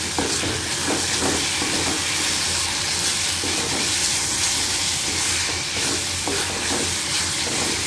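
Cauliflower and roasted masala sizzling in a kadai while a wooden spatula stirs and scrapes through them, a steady frying hiss with irregular scraping strokes.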